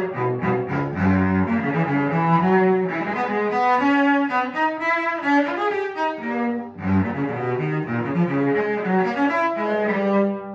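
Cello played with a bow: a brisk passage of many quick notes that stops abruptly just before the end, the last sound dying away.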